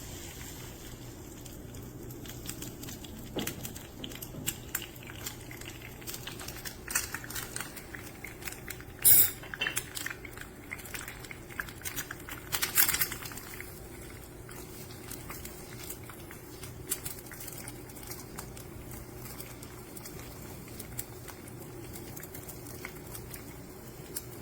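Eggs sizzling and crackling in a teaspoon of olive oil in a hot All-Clad HA1 8-inch hard-anodized nonstick fry pan. There is a steady crackle throughout, with two louder clatters of a utensil against the pan in the middle.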